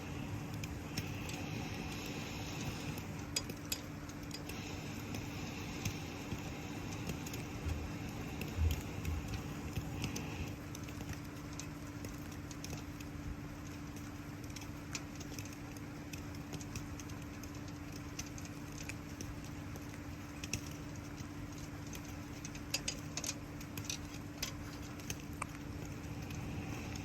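Wood campfire crackling with scattered sharp pops over a steady hiss of falling rain, with a steady low hum underneath. A dull thump comes about nine seconds in.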